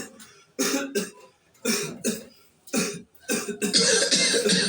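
A person coughing repeatedly: a few short coughs about a second apart, then a longer, harsher coughing fit near the end.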